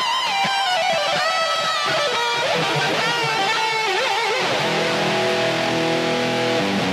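Epiphone Les Paul Special I electric guitar played through a Boss eBand JS-10 processor: a lead line of single notes with bends and vibrato, then a chord struck about four and a half seconds in and left to ring.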